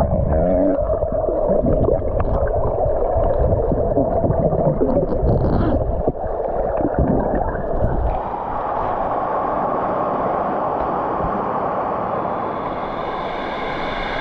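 Waterfall water rushing and gurgling close to the microphone, dull and muffled at first and becoming brighter about eight seconds in.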